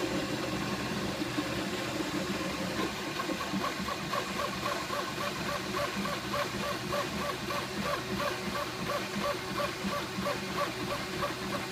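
Flashforge Dreamer 3D printer at work: its cooling fans whir steadily while the stepper motors whine in short, even pulses, about three a second from a few seconds in, as the print head sweeps back and forth filling in a wheel.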